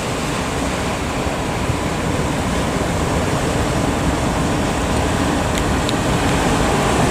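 Steady rushing noise of heavy surf breaking at a river mouth, even and unbroken.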